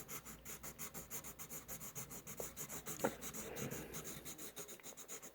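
Drawing tool rubbing and scratching on paper in fast, even back-and-forth shading strokes, several a second, as an area of the drawing is coloured in darker.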